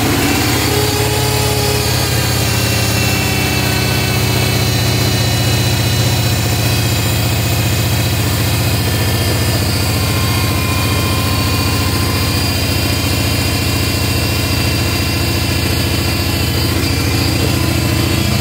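Bolens QT16 tractor engine running steadily just after a cold start, with the choke still on, heard from inside the tractor's cab.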